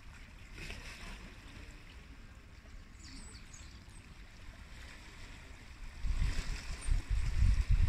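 Quiet seaside ambience of calm water lapping against a harbour wall. About six seconds in, wind starts buffeting the microphone in loud, irregular low rumbling gusts.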